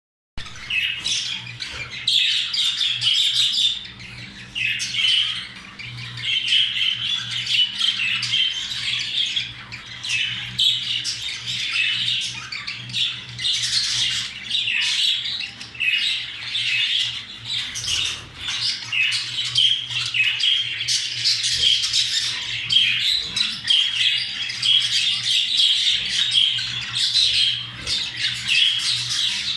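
Budgerigars chattering and warbling without a break, with scratchy squawks mixed in: budgie mating-time chatter. A steady low hum runs underneath.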